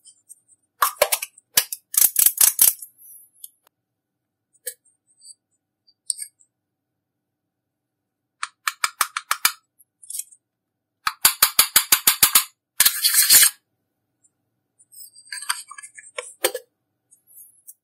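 Slime being squeezed and pressed by hand, giving runs of sharp, rapid pops and clicks from trapped air, several bursts of them with short pauses between.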